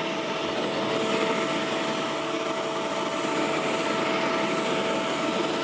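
Ozito 36 V cordless electric leaf blower running steadily: a rush of air with a steady whine from its motor and fan.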